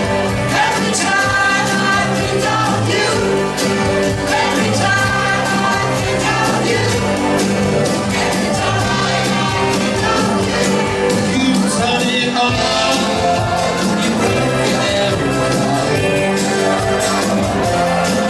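Live rock band playing a medley of 1970s pop-rock songs: acoustic guitar, electric guitar, bass, keyboard and drums, with a voice singing.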